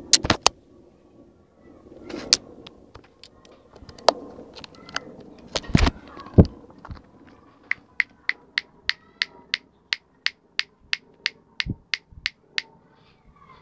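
Scattered sharp knocks and clicks, then a steady run of short sharp clicks, about three a second, lasting some five seconds.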